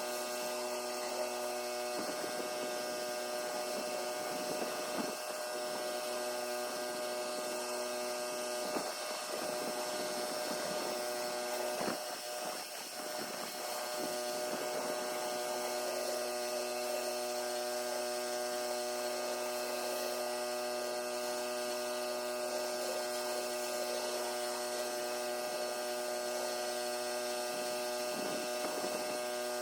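Pressure washer running at a steady pitch, a constant machine hum over the hiss of the spray.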